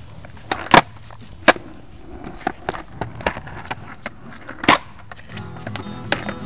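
Skateboard on concrete during trick attempts: the deck and wheels knock and clatter in sharp single hits, loudest about a second in, again a moment later and near five seconds, with lighter taps between. Near the end, strummed guitar music comes in.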